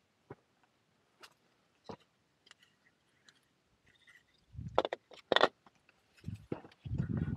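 Handling noise: scattered small clicks and knocks as a dry animal skull is picked up and handled, with two louder knocks about five seconds in, then a low rustling rumble near the end.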